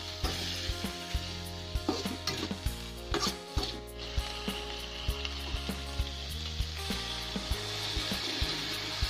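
Chayote and canned tuna sautéing in a stainless steel pan: a steady sizzle, with a metal spatula clicking and scraping against the pan many times. Near the end water is poured into the hot pan and the sizzle grows stronger.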